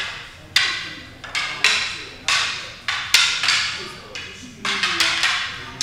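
Wooden aikido practice weapons clacking together as several pairs strike, about ten sharp wood-on-wood clacks at uneven intervals, each ringing out in the hall.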